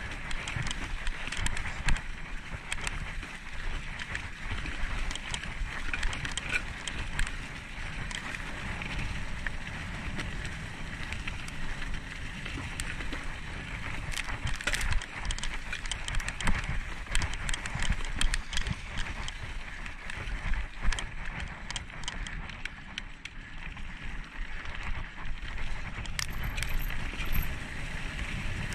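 A mountain bike rolling along a dirt trail covered in dry leaves, its tyres crunching and hissing through the leaves over a steady low rumble, with frequent small clicks and rattles.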